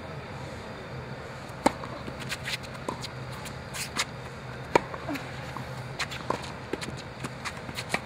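Tennis rally on an outdoor hard court: racket strokes on the ball and ball bounces as sharp pops, the two loudest about a second and a half and four and a half seconds in, with shoes scuffing the court between shots.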